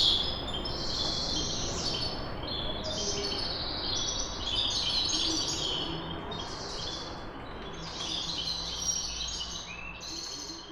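Several birds chirping and tweeting in a city, short high chirps in overlapping clusters every second or so, over a steady low background of city noise. The chirping grows fainter near the end.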